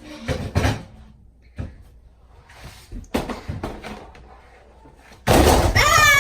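A few light knocks and bumps, then about five seconds in a sudden loud hissing blast that settles into a steady, high, piercing air horn tone, still sounding at the end.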